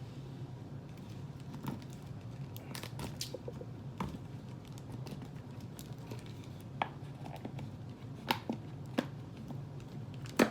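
Scattered crinkles and clicks from handling a 1.25-liter plastic soda bottle and picking at its paper label, over a low steady hum.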